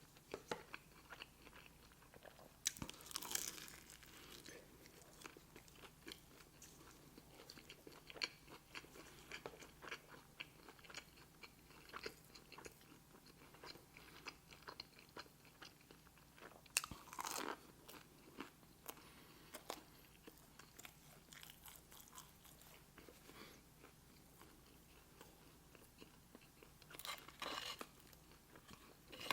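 Close-miked eating: soft, steady chewing and wet mouth clicks, with three louder crunching bites near the start, midway and near the end.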